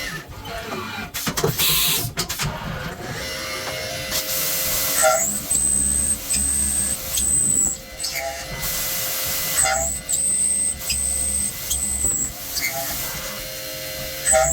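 CNC milling machine working billet aluminium, its motors starting and stopping in a repeating cycle about every five seconds with a high thin whine. The first few seconds are noisier, with a few sharp clicks.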